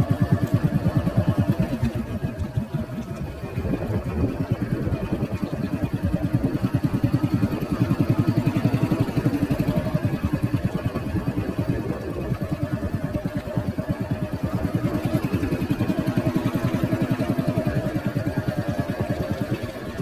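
Motorcycle engine running steadily on the move, pulsing in a fast, even beat, easing off a little a couple of times.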